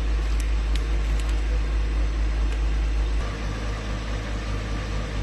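Excavator's diesel engine running steadily, heard mostly as a low rumble with a noisy haze over it; the rumble drops in level about three seconds in.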